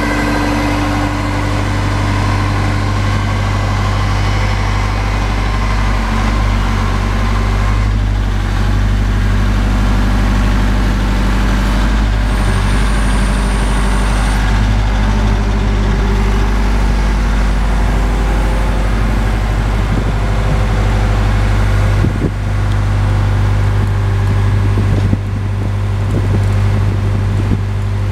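Boart Longyear DB520 drill rig's engine running steadily with a deep, even hum.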